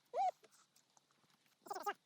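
An animal's short, high calls: a brief arched call near the start and a longer, wavering one near the end.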